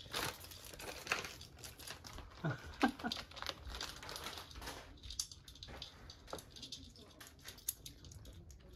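A cat crunching dry kibble from a bowl: quick, irregular crunches, a few of them louder around the third second.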